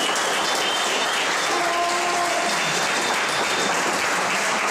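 Audience applauding: a dense, even clatter of clapping at a steady level, with a few faint held notes under it.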